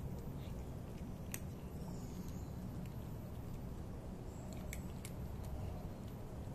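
Cats crunching dry kibble, with sharp crunches about a second and a half in and a quick cluster of them about five seconds in, over a steady low rumble.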